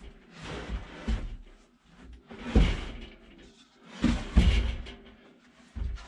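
A few dull thuds with scraping and rustling between them: one heavy thud about two and a half seconds in, a cluster of them around four seconds in, and a smaller one near the end.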